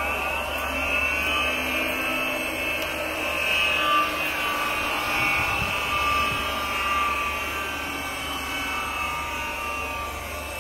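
GER cylindrical grinder running: a steady mechanical whir with a wavering high whine and a constant low hum from its motors and spindle.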